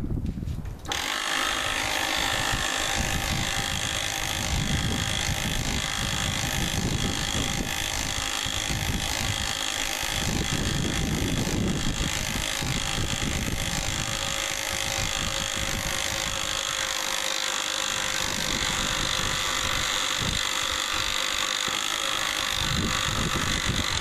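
Master Lock 2953AT 12-volt DC portable electric winch running under load, a steady whine that starts about a second in, as it slowly drags a lawn tractor with a locked-up transmission. The whine is normal for this winch.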